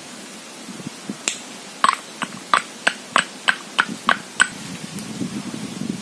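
Rock salt being pounded in a small stone mortar: about ten sharp knocks, roughly three a second, each with a short ring.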